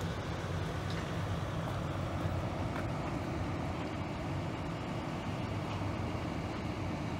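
Large excavator's diesel engine running steadily, a low even hum with no load changes or impacts.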